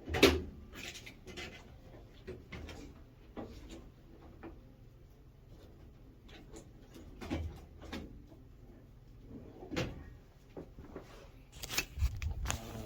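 Cabinet drawers being slid open and shut, with a series of knocks and clunks: a loud one just after the start, scattered ones in the middle and a cluster of clatter near the end.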